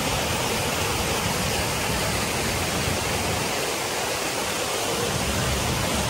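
A small waterfall, creek water pouring over a low rock ledge into a shallow pool, makes a steady rush and splash.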